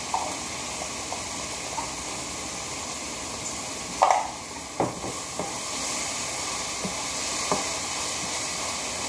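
Onion and tomato sautéing in a nonstick wok with a steady sizzle, broken by scattered clicks and knocks as salt is added and a metal utensil stirs against the pan; the loudest knock comes about four seconds in.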